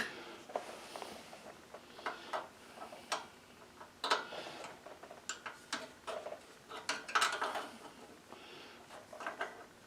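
Scattered metallic clicks and clinks, some in quick clusters, from a wrench being fitted to and worked on the carburetor mounting bolts of a small engine.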